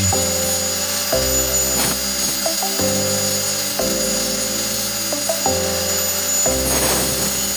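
Background music with chords changing about once a second, over the steady high whine of an angle grinder's diamond cutting disc grinding a labradorite stone into shape.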